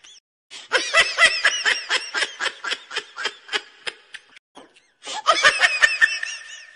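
A high-pitched, rapid laugh, added as a comedy sound effect: quick 'he-he-he' pulses about five a second. It fades out, stops briefly, and starts again about five seconds in.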